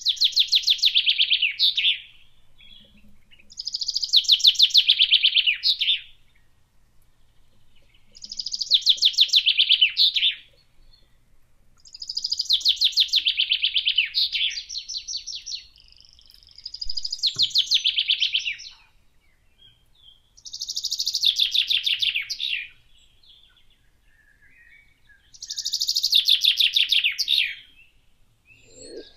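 A small songbird singing the same short song seven times, about once every four seconds: each song is a fast run of notes about two seconds long, falling in pitch as it goes.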